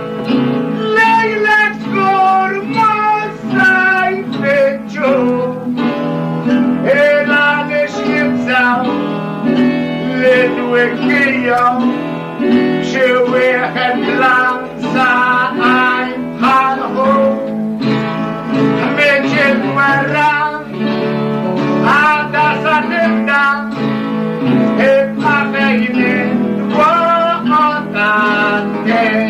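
Plucked acoustic guitars playing a Maltese għana tune.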